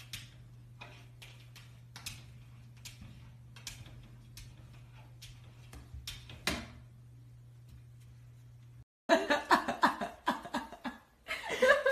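Light taps and scratches of a golden retriever puppy's paw against a mirror, scattered faint clicks with one louder tap near the middle, over a steady low hum. About nine seconds in a person laughs and talks, louder than anything before.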